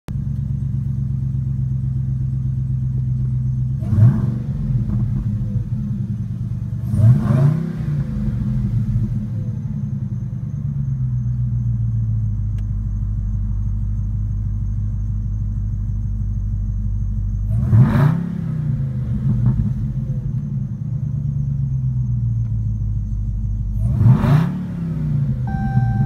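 2015 Dodge Challenger Hellcat's supercharged 6.2-litre HEMI V8, fitted with a Zoomers cat-back exhaust and a Bwoody cold air intake, heard from inside the cabin: it idles steadily and is revved sharply four times while the car stands still, each rev rising quickly and falling back to idle. Just before the end a dashboard warning chime sounds for low washer fluid.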